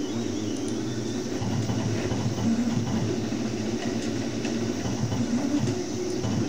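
A steady low mechanical hum and rumble.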